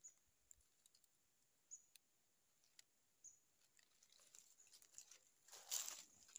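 Near silence with a few faint clicks, then near the end a brief rustle in dry leaf litter as a freed wild junglefowl scrambles away.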